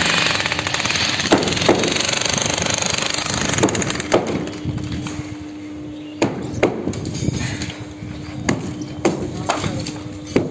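A jackhammer breaking a concrete slab, hammering rapidly and stopping about four seconds in. After that, scattered sharp knocks and a faint steady hum.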